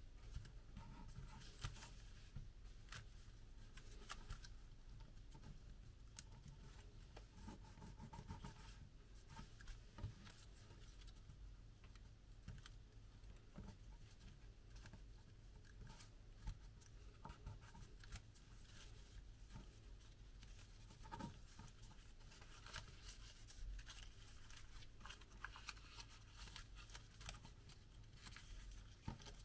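Faint, irregular crinkling, rubbing and small clicks of a sheet of origami paper as it is folded and creased by hand.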